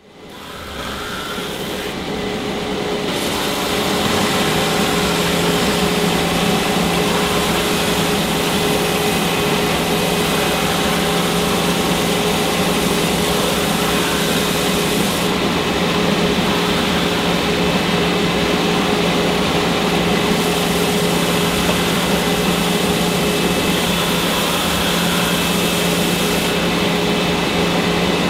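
Electric woodworking sanders running: a motor spins up over the first few seconds, then a steady machine drone with a hum and a whine.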